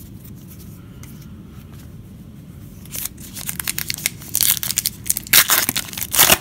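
A Panini Classics football card pack's wrapper being crinkled and torn open. It comes as a run of crackling rips starting about halfway through, with the loudest near the end.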